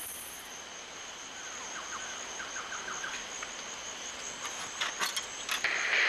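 Rainforest ambience: a steady high insect drone, with a quick run of short bird chirps about two seconds in. A few sharp clicks come near the end.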